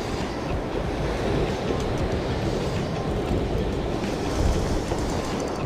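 Ocean surf washing and breaking over rocks, a steady rushing, with wind buffeting the microphone.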